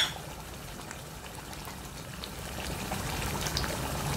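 Taro and mutton curry simmering in a pot, the gravy bubbling steadily with faint small pops. A single sharp knock comes at the very start.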